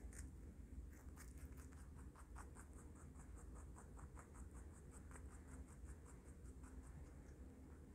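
Baby rabbit chewing a mouthful of chopped vegetable salad: faint, quick, even crunching at about six chews a second, which stops near the end.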